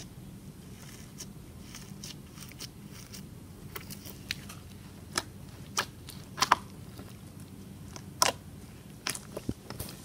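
Green slime being pressed and kneaded by hand, giving irregular wet clicks and pops, some much louder than others, with the sharpest pops about six and a half and eight seconds in.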